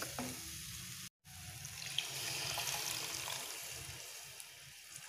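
Tamarind water poured in a thin stream into a pan of thick masala, a steady trickling splash that starts about a second in and slowly fades toward the end.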